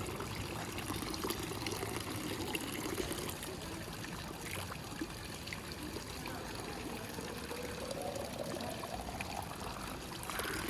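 Water running steadily into a vessel, the pitch of the filling rising near the end as the vessel fills up.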